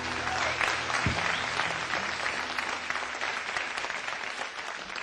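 Audience applauding, a dense crackle of many hands that slowly dies down. The last held notes of music fade out about a second in.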